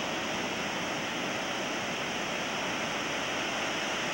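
Rough Pacific surf breaking on a sandy beach: a steady, unbroken wash of ocean noise.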